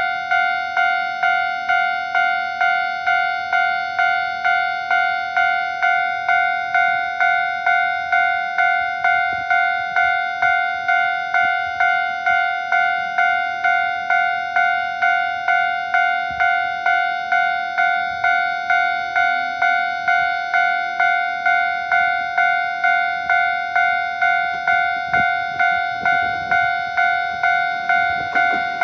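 Japanese railway level-crossing alarm ringing continuously, an electronic two-tone ding repeating just under twice a second: the warning that a train is approaching the crossing.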